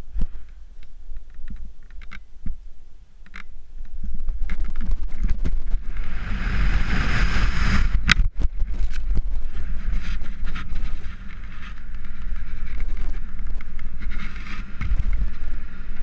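Wind rushing over a helmet camera's microphone during a BASE jump. A few light knocks and taps come first, then the wind noise builds during the freefall. A single sharp crack about halfway through comes as the parachute opens, and the steadier wind noise under the open canopy follows.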